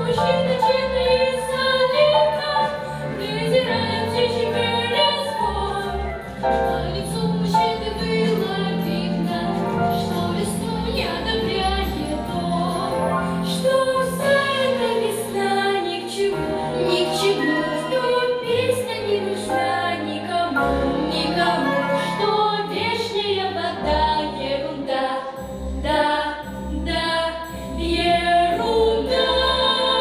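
A girls' vocal ensemble singing together into microphones over an instrumental backing with a bass line and a beat.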